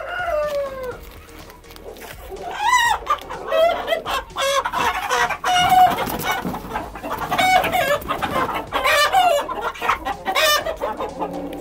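Chickens squawking and clucking over and over as they are grabbed and carried by hand, with several loud, drawn-out cries.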